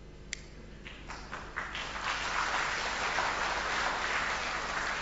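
Audience applauding: a few scattered claps about a second in, swelling into full, steady applause.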